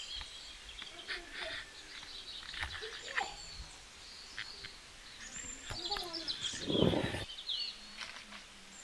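Small birds chirping, with a louder, brief sound about seven seconds in.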